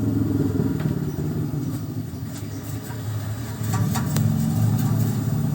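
A low, steady engine-like drone, like a motor vehicle idling nearby, with a few light clicks over it, most of them in the second half.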